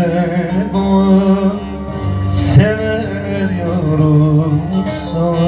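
A man singing a Turkish folk song (türkü) into a microphone in long, held, wavering notes, accompanied by a bağlama.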